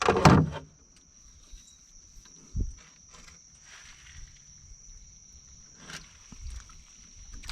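A steady high-pitched drone of insects, with a short loud burst of sound right at the start and a few faint knocks and a dull thump.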